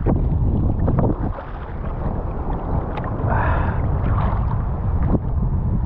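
Wind buffeting the microphone in a steady low rumble over surf water sloshing close by, with a few sharp clicks and knocks.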